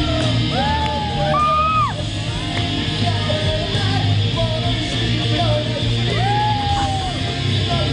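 Live rock music played through a PA in a large hall: electric guitar over a steady heavy bass, with a few long sung or yelled notes that bend in pitch.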